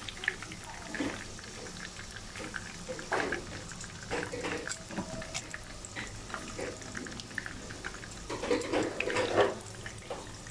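Breaded pork chops sizzling and crackling in hot oil in a frying pan, with metal tongs clicking against the pan as the pieces are turned. There is a louder burst of sound about eight seconds in.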